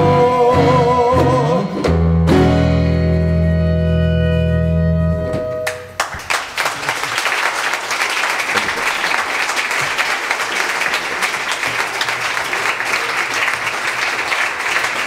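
A live song ends: a last sung note held with vibrato, then a final chord from the band rings for a few seconds, and the audience applauds from about six seconds in.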